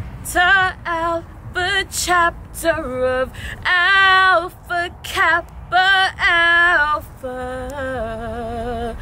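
A woman singing a slow melody without accompaniment, with vibrato on the held notes. About seven seconds in it turns to softer, lower sustained notes.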